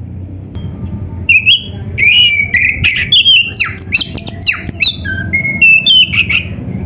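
Oriental magpie-robin (kacer) singing hard: a fast, varied string of whistled notes, slurred rising and falling glides and harsh squawky calls. A steady low hum runs underneath.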